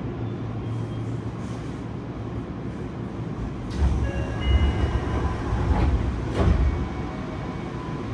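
Inside a stopped Yokohama Municipal Subway 3000S subway car: a steady hum, with a stretch of heavier low rumbling and a few sharp hisses between about four and seven seconds in. The car's doors are opening near the end.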